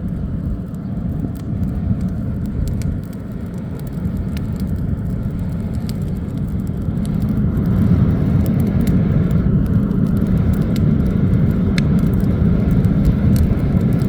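Homemade coal furnace burning under forced air from its electric fan: a steady low roar with scattered crackles, growing louder about eight seconds in.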